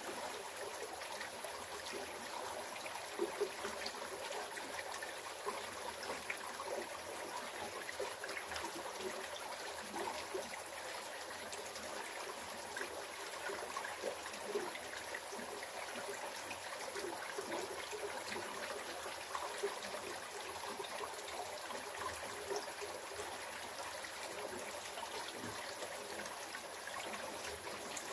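Small rocky creek running over and between stones: a steady trickle of water dotted with many small gurgles.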